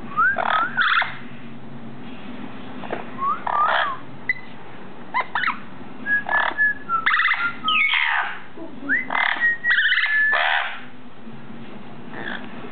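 Orange-winged amazon parrot calling: a series of short whistles and squawks with quick pitch slides, coming in clusters for about the first eleven seconds, then one faint call near the end.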